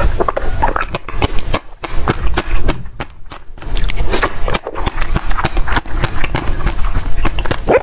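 Close-miked biting and crunching into a glove-shaped block of ice frozen with basil seeds: dense crackling and crunching with wet mouth sounds, broken by a brief pause around three seconds in.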